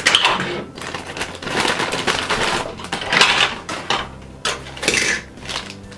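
Small hard-plastic doll furniture pieces clicking and clattering together while clear plastic packaging bags rustle, in irregular bursts.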